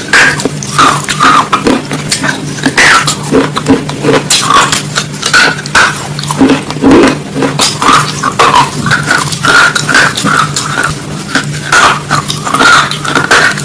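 Close-miked eating of a raw vegetable salad: many irregular crunches and crackles, with cutlery clinking on a dish and a steady low hum underneath.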